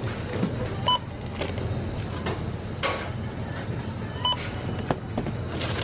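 Self-checkout barcode scanner giving two short beeps, about a second in and again past four seconds, as items are scanned, over the crinkling of a crisp packet being handled.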